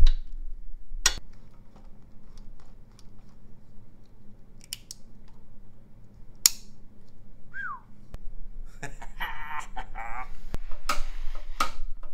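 Workshop handling sounds as parts and tools are worked on a moped: scattered sharp clicks and knocks, a short falling squeak about seven and a half seconds in, and a scratchy rasp lasting over a second near nine seconds in, followed by a few more clicks.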